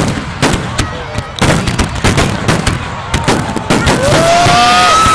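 Fireworks display at close range: a dense barrage of shell bursts, several bangs a second, getting denser and louder about a second and a half in. A held tone rising in pitch comes in near the end.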